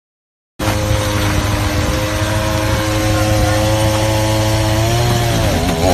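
A chainsaw running at high speed, cutting in abruptly about half a second in; near the end its pitch sags and then picks up again, as it does when the chain bogs down in a cut.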